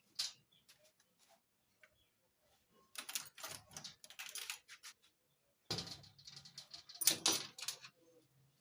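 Small metal parts and hand tools clicking and rattling as they are handled: a sharp click about a quarter second in, then two spells of dense clattering, the second ending a little before the end.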